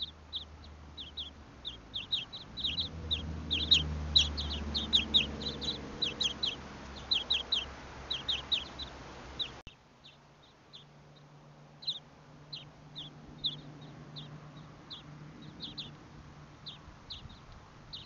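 Small songbirds, European greenfinches among them, chirping in quick short high calls, several a second. Partway through the chirping cuts off abruptly and resumes sparser, over a low hum.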